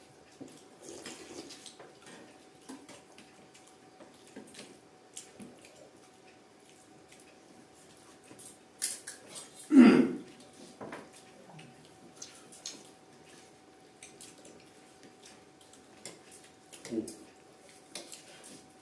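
Eating at a table: scattered small clicks of cutlery against a dish, with a faint steady hum under them. One much louder low sound comes about ten seconds in.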